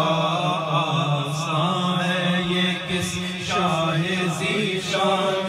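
Men's voices chanting an unaccompanied Urdu manqabat, a wavering sung melody over a steady low drone.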